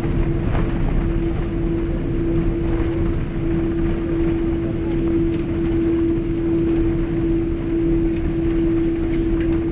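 Boeing 777-200ER cabin noise during the landing roll-out, spoilers still raised: a steady low rumble of the airliner rolling down the runway, with a steady hum held on one pitch and a few faint clicks.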